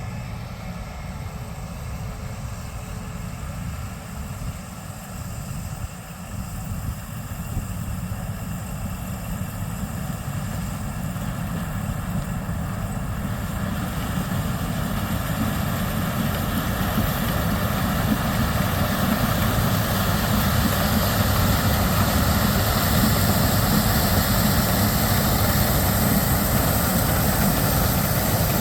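Gleaner S97 combine's twin-turbocharged inline seven-cylinder diesel running steadily while harvesting corn, growing louder from about halfway through.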